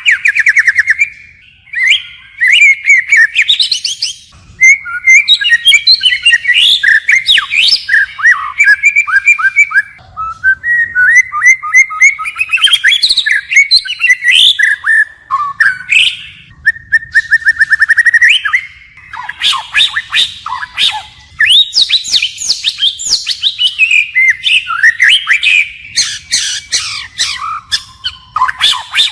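White-rumped shama singing a long, varied song of rapid trills, sliding whistles and sharp chips. It switches from one phrase type to the next almost without a break, with only a few short pauses between bursts.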